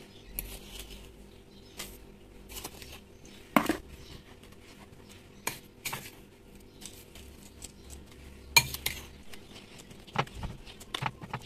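Coarse salt being sprinkled and pressed down by hand over duck eggs in a plastic box: grainy crunching and rustling with scattered sharp clicks, the loudest about three and a half seconds in and again about eight and a half seconds in.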